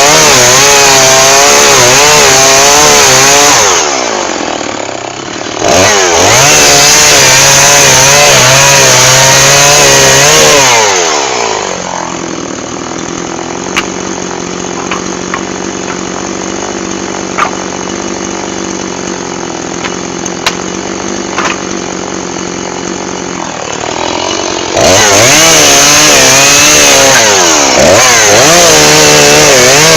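Two-stroke chainsaw cutting firewood at full throttle, its pitch wavering under load. About four seconds in the revs dip briefly and pick up again. About twelve seconds in it falls back to a steady idle with a few light clicks, then revs up again near the end.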